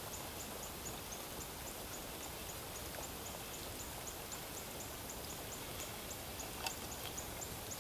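Steady rain falling on the creek's surface, a soft even hiss, with a fast, regular high-pitched ticking of about three or four ticks a second running over it.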